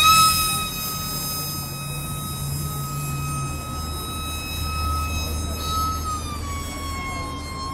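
Electric ducted fan of a UMX F-16 micro RC jet whining at high throttle as it flies close overhead. The pitch jumps up right at the start, holds steady, then dips slightly about six seconds in.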